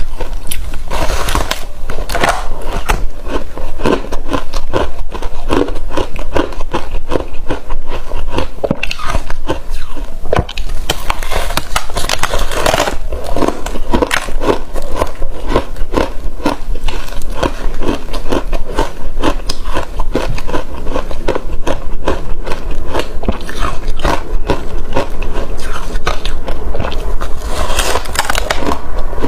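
Close-up crunching and chewing of frozen passion fruit ice: rapid, continuous crunches as the ice is bitten and ground between the teeth.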